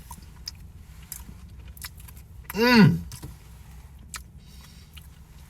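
A man eating strawberry pie: faint scattered clicks of eating, and one short appreciative hummed "mmm" about two and a half seconds in, its pitch rising then falling.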